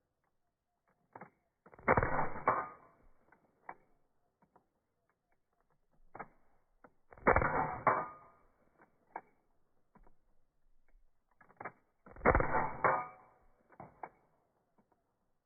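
Three shots from a Crosman Mako CO2 pistol heard in slow-motion playback, each drawn out into a dull blast about a second long, spaced about five seconds apart, with smaller clicks between them.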